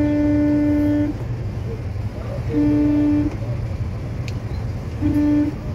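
A car horn honking three times in stop-and-go traffic: a held blast of about a second, a shorter one near the middle and a brief one near the end, all on one steady pitch, over the low rumble of idling traffic.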